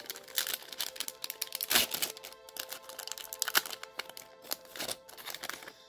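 Foil trading-card booster pack wrapper crinkling in the hands as it is torn open, in an irregular run of crackles that is loudest about two seconds in. Steady background music plays underneath.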